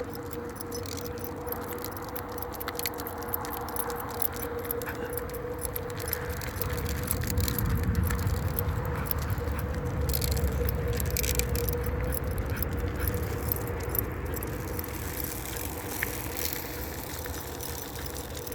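Onewheel's electric hub motor giving a steady whine as the board rolls, over a low rolling rumble that grows louder through the middle, with scattered light metallic jingling and clicking.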